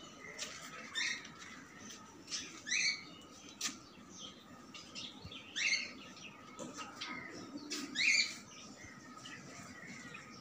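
Small cage birds in a colony chirping and chattering, with a louder short call about four times, plus light ticks and scratches.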